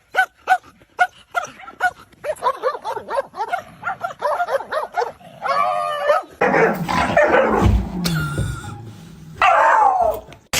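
A dog barking in short, high, evenly spaced yips, about three a second, then a quicker run of yelps and whines. The second half is louder and busier, with a falling whine near the end.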